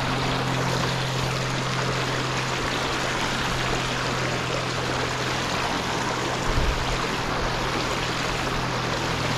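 Shallow river water running steadily over the rocks, with a low steady hum underneath. A brief low thump about six and a half seconds in.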